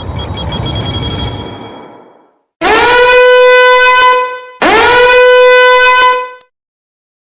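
Two long horn blasts on the same steady note, each sliding up into pitch at its start, the second following straight after the first. Before them, a noisy crash-like sound with a high ringing shimmer fades out over about two seconds.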